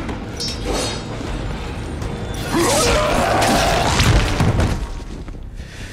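Fight-scene sound effects mixed over film music: thuds, impacts and a sliding pitched sound, loudest from about two and a half to four and a half seconds in.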